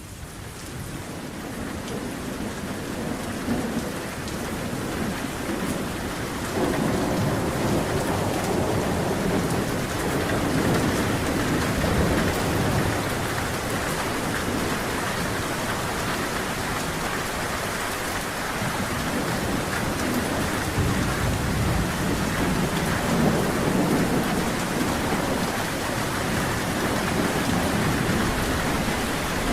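Heavy rain falling steadily, with two long rolls of thunder rumbling beneath it, one about a quarter of the way in and one past the middle. It fades in over the first couple of seconds.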